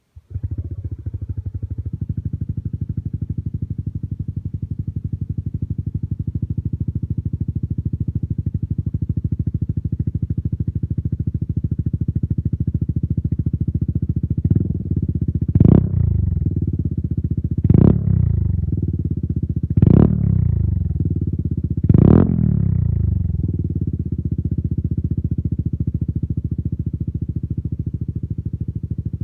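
Yamaha Aerox scooter's single-cylinder engine idling through an aftermarket Akrapovic-copy exhaust, cutting in abruptly at the start. In the second half the throttle is blipped four times in quick succession, each rev dropping back to idle.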